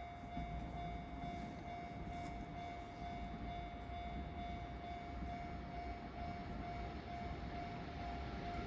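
Japanese level crossing's electronic warning bell ringing steadily at one pitch, over a low rumble.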